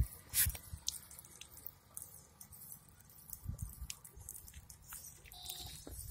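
Faint, scattered clicks and soft taps among a herd of goats on a concrete floor, with a few dull low thumps and a brief tone late on.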